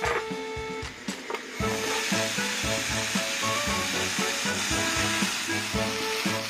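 A lid is lifted off an electric grill plate with a clunk, and a beef steak, chicken gizzards and vegetable slices sizzle on the hot plate, the sizzle swelling to a steady hiss after about a second and a half. Background music with a light beat plays throughout.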